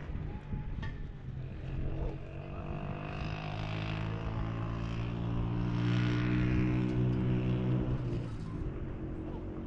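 An engine's steady hum swells from about two seconds in, is loudest a little past the middle, and fades away near the end.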